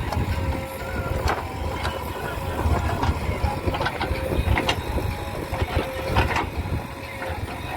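Diesel engine of a JCB excavator running with a steady low rumble, with repeated sharp knocks and clanks from the machine at irregular intervals.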